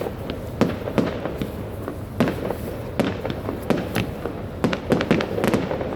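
Fireworks going off: a dense, irregular barrage of sharp bangs and crackles, a loud bang every half second or so over a steady background of smaller pops.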